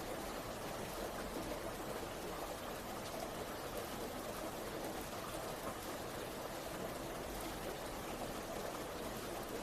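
Heavy rain falling steadily, a continuous even hiss and patter without letup.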